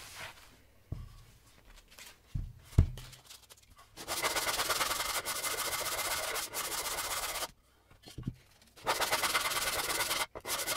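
A few light knocks as the wooden cutting board is turned over and set down. Then a hand sanding block with 120-grit sandpaper rubs along the board's edge in two long, steady runs, with a brief pause between them a little past halfway.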